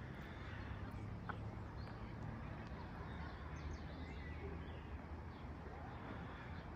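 City street ambience: a steady low rumble of the street, with small birds chirping briefly a few times in the middle.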